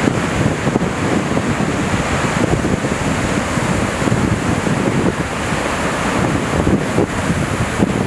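Pacific Ocean surf breaking and washing over a flat rock ledge, a steady rushing wash of water, with wind buffeting the microphone.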